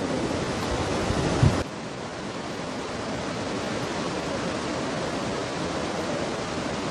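Steady rushing of a mountain river. For the first second and a half, wind buffets the microphone with a knock, then that stops abruptly, leaving only the even rush of water.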